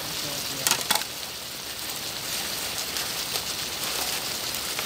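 Food sizzling steadily in a frying pan, with two sharp clicks within the first second.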